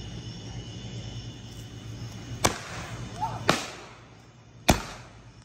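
Sharp firework bangs, three about a second apart and a fourth at the very end, the later ones trailing off in an echo.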